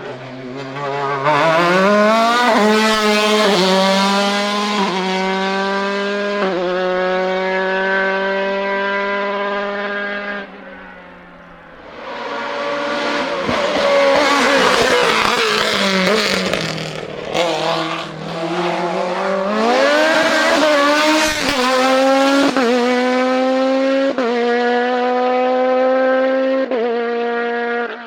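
Hillclimb race car engine at full throttle, rising in pitch through a series of quick upshifts. A little before halfway it drops away briefly, comes back harsher and noisier, then climbs through further upshifts.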